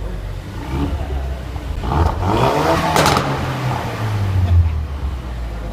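Mk3 Ford Focus RS 2.3-litre turbocharged four-cylinder revving through its aftermarket exhaust: the engine note rises about two seconds in, with a single sharp crack about three seconds in, then holds and falls away.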